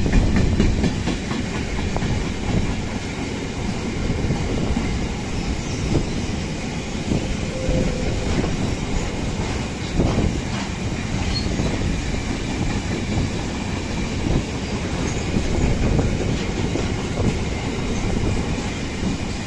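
Freight train of empty container flat wagons rolling past at close range: a steady rumble of steel wheels on the rails, with scattered knocks from the wheelsets.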